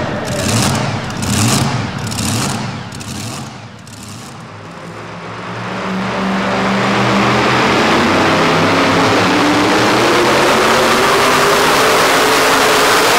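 An engine is blipped in quick revs, about two a second, and then drops away. The supercharged engine of a super modified two-wheel-drive pulling truck then comes up to full throttle under sled load. It runs loud and steady, its pitch climbing slowly as it goes down the track.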